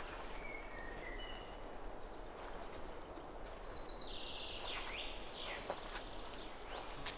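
Birds singing and calling, with thin whistled notes and short rising and falling sweeps, over a steady outdoor background hiss.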